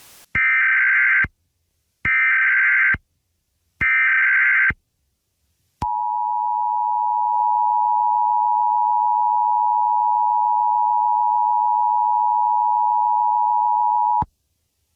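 Emergency Alert System header tones: three short bursts of SAME data tones, about a second each, then the steady two-tone EAS attention signal held for about eight seconds before it cuts off.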